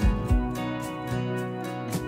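Background music: an instrumental stretch of a song, with held notes and a beat and no singing.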